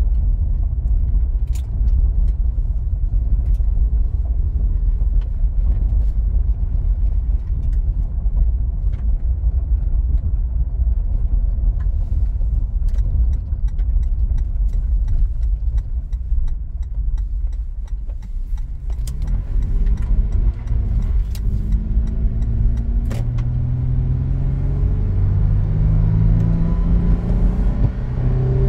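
A motor vehicle running, with a loud, steady low rumble. From about two-thirds of the way through, an engine note rises in steps as it speeds up.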